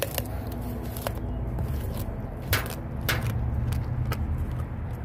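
Adult Lycan Shepherd dog chewing a frozen raw fish, with about half a dozen sharp crunches of flesh and bone, the loudest about two and a half seconds in, over a steady low rumble.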